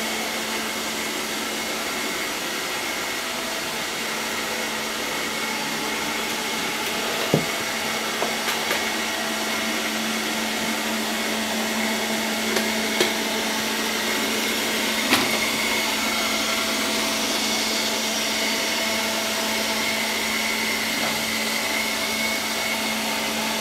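ILIFE V5S robot vacuum running on max suction: a steady whir with a constant hum. A few sharp clicks break through it about seven, thirteen and fifteen seconds in.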